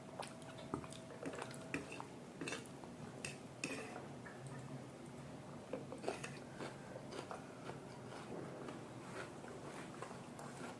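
People chewing chow mein, with many short wet mouth clicks and smacks.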